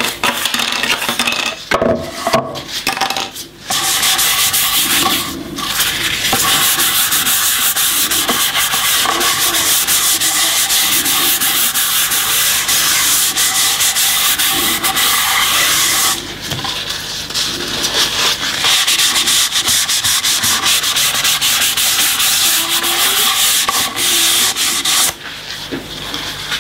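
Cloth rubbing finish into an end-grain hardwood cutting board, a steady scratchy rubbing that eases briefly about two-thirds of the way through and stops near the end. A few knocks come in the first few seconds.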